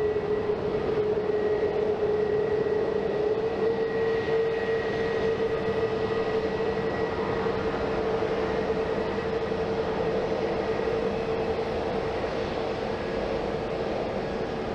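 Jet airliner engines running with a steady whine over a broad rush, slowly fading over the last few seconds.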